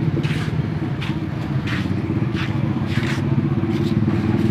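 A motor vehicle engine running steadily, with footsteps scuffing along concrete about one and a half times a second.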